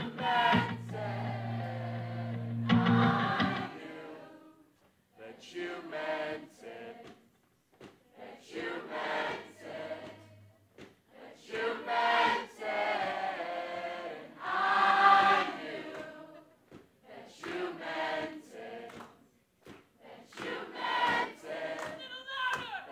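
Acoustic guitar chord ringing out for the first few seconds, then many voices singing the song's lines together with no accompaniment, phrase by phrase with short pauses between: a concert crowd singing along.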